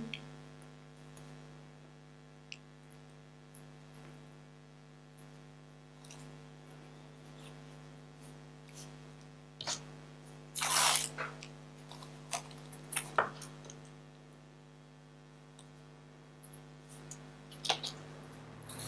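Faint handling sounds from green florist tape being wrapped around wired sugar flower and leaf stems: small clicks and rustles, with one louder rustle about halfway through, over a steady low electrical hum.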